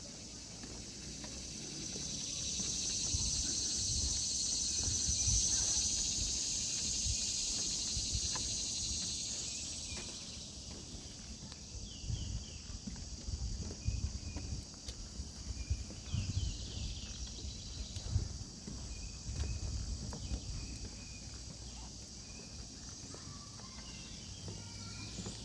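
A cicada's high buzz swells up and fades away over the first ten seconds. After it, footsteps on the trail, about one a second, with faint insect chirps.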